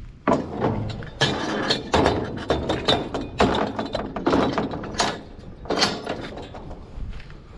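Steel mesh trailer ramp gate being lifted and folded up: a run of metal clanks and rattles, easing off near the end.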